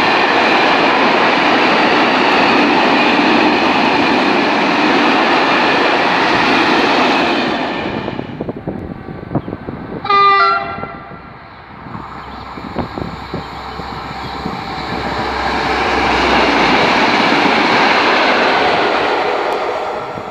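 A freight train of tank wagons rolling past, a steady loud rush of wheel and rail noise that fades out about eight seconds in as the last wagons go by. About ten seconds in comes one short, loud train horn blast. After it, a rush of wind noise on the microphone swells and fades.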